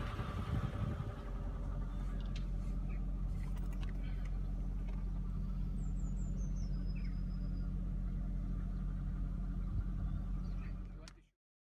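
2003 Mercedes-Benz SL500's 5.0-litre V8 idling steadily after a cold start. It cuts off suddenly near the end.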